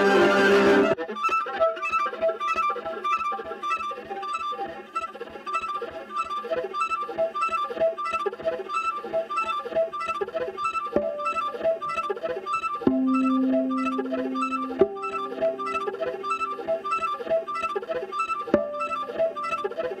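Solo viola playing. A loud bowed chord breaks off about a second in into a quick, steady pulse of short, light percussive notes. From about halfway, long held bowed notes sound over the continuing pulse.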